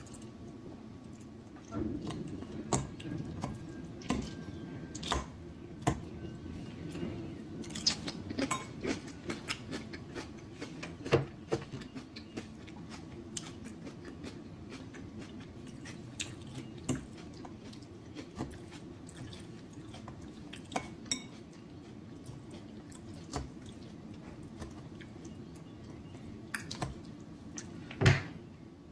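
Cutlery and dishes clinking: scattered taps and clicks of utensils against a plate or bowl during a meal, with the sharpest knock near the end.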